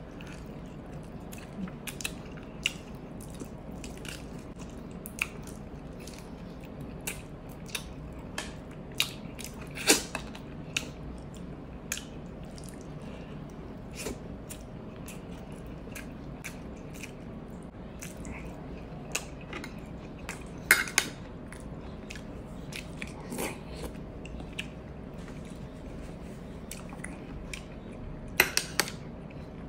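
Close-up eating sounds: chewing and biting with scattered sharp wet clicks and smacks, a few of them loud, over a steady low hum.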